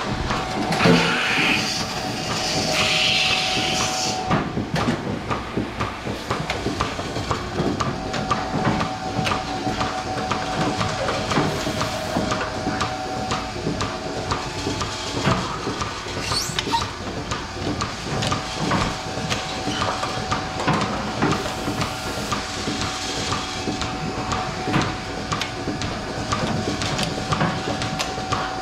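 DeLaval milking robot at work under a cow: a steady mechanical tone and a constant run of clicks and knocks from its arm and valves, with a burst of hissing air in the first few seconds.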